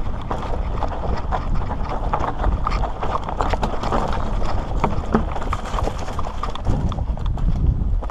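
Mountain bike riding fast down rocky singletrack: tyres crunching over loose stones and the bike rattling, a dense run of clicks and knocks over a steady low rumble.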